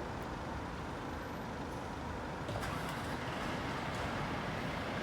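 Steady rumble of a heavy vehicle's engine with road noise. A brief hiss comes about two and a half seconds in, and the sound gets slightly louder after it.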